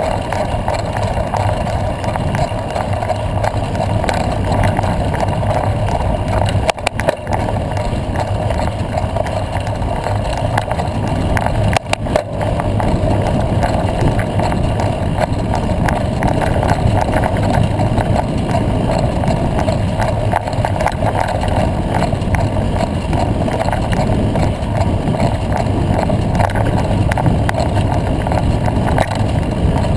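Steady rush of wind on the microphone with the rattle of a bicycle riding over a rough dirt road, briefly cut off twice.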